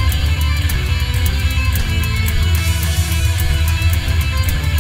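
Instrumental rock music: electric guitar over bass guitar and drums, with a steady cymbal beat.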